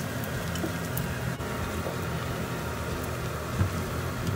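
Thin flatbread dough frying in a pan of hot oil: a steady sizzle with fine crackling, over a low steady hum. A soft knock near the end.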